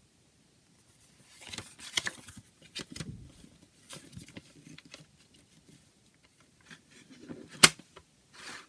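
A CD case and its booklet being handled: irregular rustling and light plastic clicks, with one sharp click about three-quarters of the way through.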